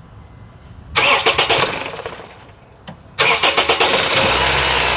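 Honda Civic engine being started: the starter cranks about a second in and the sound dies away, then a second start a little past three seconds catches and the engine keeps running.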